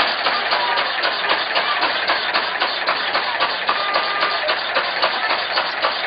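Antique stationary gas engine with a large flywheel running steadily, with a rapid, even knocking from the engine and the machinery it drives.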